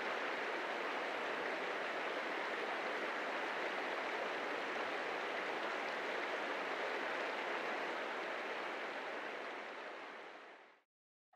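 Steady rush of a shallow, rocky mountain creek flowing over stones, fading out about ten seconds in.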